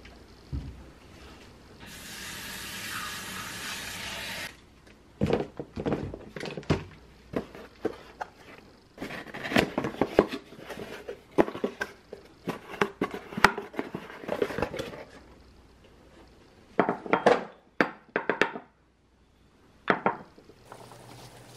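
Kitchen handling noises: a couple of seconds of steady hiss, then a long run of short clatters, taps and rustles as a cardboard box is opened and its contents unpacked. A few sharp knocks follow as a ceramic mortar and wooden pestle are handled.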